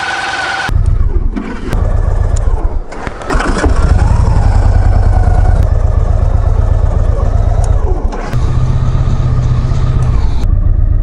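Victory Cross Country motorcycle's air-cooled V-twin being started: the starter whines, the engine catches under a second in, gets one throttle blip about three seconds in, and then runs steadily.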